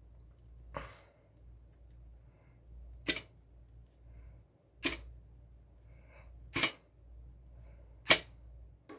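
A ceramic striker scraped down a ferrocerium rod, throwing sparks onto frayed duct tape. There are five quick, sharp scrapes about every one and a half to two seconds, and the first is fainter.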